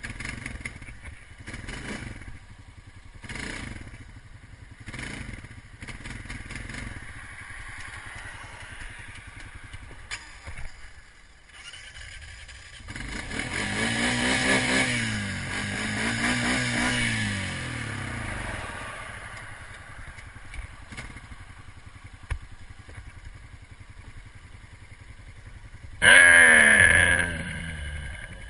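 ATV engine idling, then revved up and let back down twice in a row in the middle. A short loud burst comes near the end.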